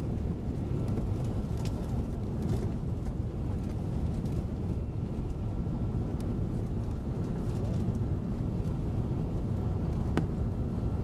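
Steady low rumble of engine and airflow noise inside an Airbus A380's cabin in flight, with a faint steady whine and a sharp click near the end.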